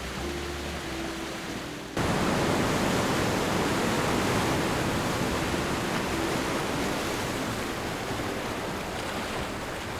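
A steady rush of water that jumps abruptly louder about two seconds in, then holds steady.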